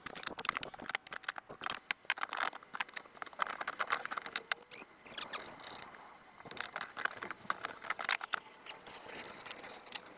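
Fast-forwarded assembly of a steel-and-plastic garden dump cart: a rapid, continuous clatter of clicks, knocks and scrapes from the frame, parts and hand tools, sped up so it comes quick and high-pitched.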